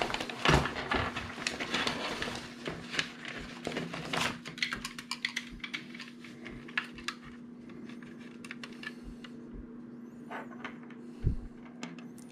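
Scattered light clicks, taps and rustling of hands handling small objects, busiest in the first four seconds or so and sparser after, over a faint steady hum.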